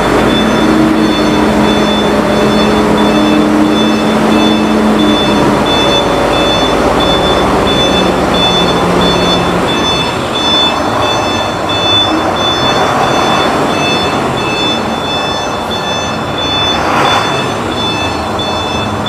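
Fuso Fighter FN62F truck's 6M60 common-rail diesel engine running as the truck backs slowly, its reversing alarm giving a steady run of high beeps.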